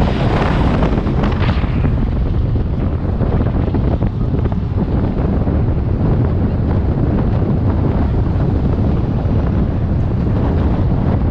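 Strong wind buffeting the microphone: a steady, loud low rumble, with a brighter rushing hiss in the first couple of seconds.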